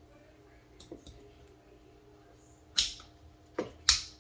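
Sharp clicks of small spring-loaded parts being worked into an AR-type lower receiver: a couple of faint ticks, then three loud clicks in the second half, the loudest near the end.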